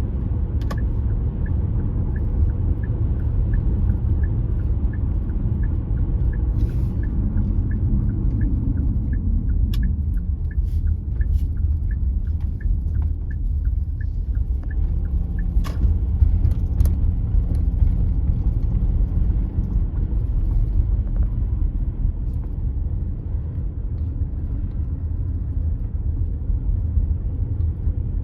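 Steady low road rumble of a car heard from inside the cabin while driving. A turn-signal indicator ticks steadily, about two clicks a second, for the first half, then stops. A few sharp clicks stand out.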